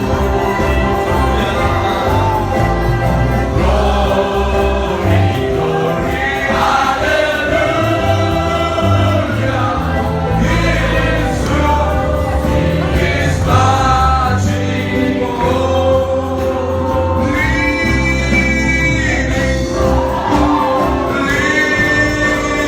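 Gospel choir singing a praise song over a steady instrumental backing with a strong bass line, voices holding long notes.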